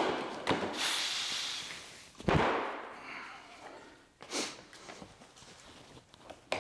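Irregular handling noises: a knock, hissing rustles, and a sharper thump a little after two seconds in.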